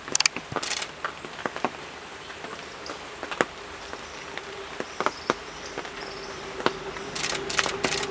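A steady, very high-pitched drone of forest insects, with scattered light clicks and ticks throughout. A faint steady low hum comes in about four seconds in.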